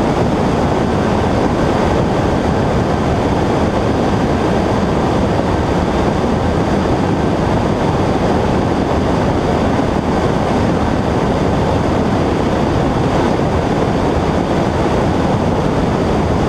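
Steady, loud noise of a Cessna 120 in flight: its engine and propeller with rushing wind, level and unchanging throughout.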